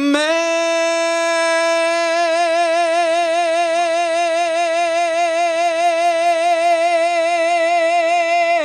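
A male singer's amplified voice holds one long high note with no accompaniment. The note is steady at first, then a vibrato sets in about two seconds in and widens.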